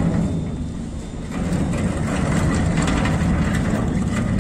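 A heavy engine running with a steady low rumble, with a few faint knocks over it.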